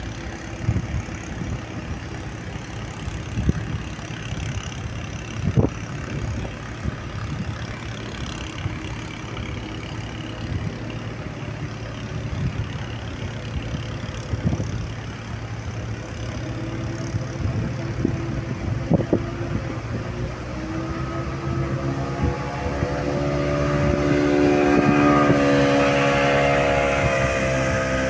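Steady low running of a river boat's engine with occasional knocks. From about two-thirds of the way in, the pitched drone of a small motorboat's engine grows louder as it comes up close, and becomes the loudest sound near the end.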